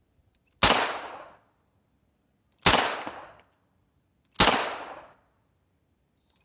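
Three shots from an M1895 Nagant revolver in 7.62×38mmR, fired about two seconds apart, each with a short echo trailing off.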